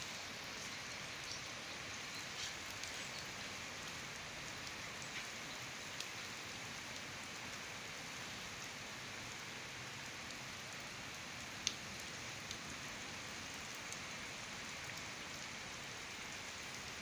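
Torrential rain pouring steadily onto flooded ground and standing water, an even hiss of drops. A single sharp click stands out about two-thirds of the way through.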